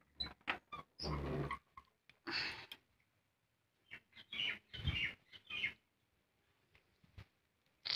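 A person coughing and gagging in a series of short harsh bursts, each about half a second long, with pauses between them.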